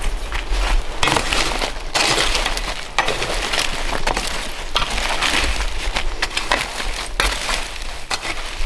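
A small shovel scraping and scooping wet ash and charcoal out of a stone-ringed fire pit, a crunchy scrape repeated about once a second.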